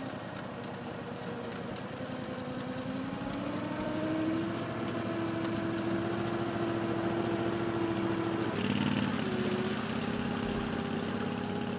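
Engine of a home-built amphibious boat running steadily as it drives across sand on its wheels, its pitch rising about three seconds in and then holding. Near nine seconds in the sound changes abruptly to the boat's outboard motor running as it moves through the water.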